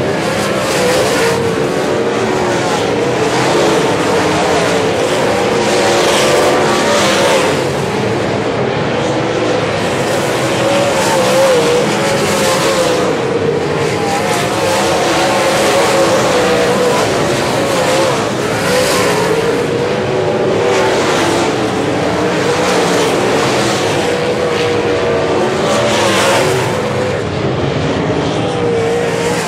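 Dirt-track modified race cars running laps, their engines rising and falling in pitch through the turns, with a few louder swells as cars pass close by.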